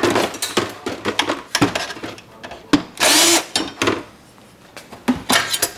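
Cordless drill/driver spinning briefly, about half a second, about three seconds in, backing out a screw from the tape dispenser's front plate. It is set among clicks and clatter of metal parts and tools being handled.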